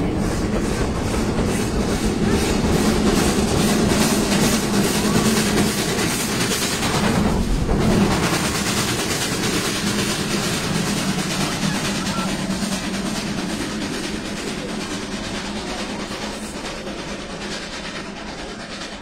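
Steam train running past below and heading away. The sound is loudest about eight seconds in, then fades steadily as the train draws off.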